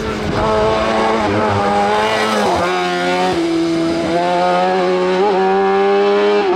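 Race car engine at high revs, its pitch dropping sharply about two and a half seconds in, then climbing again and holding high toward the end, with a short blip just after five seconds.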